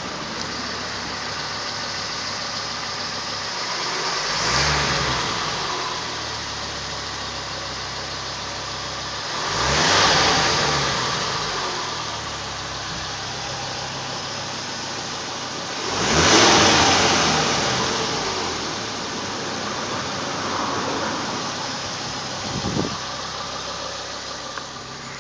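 Ford Focus ST engine idling and blipped three times, each rev climbing and dying away over about two seconds, then a smaller rev and a short sharp blip near the end. The high-pitched whine the owner is chasing rises and falls with each rev.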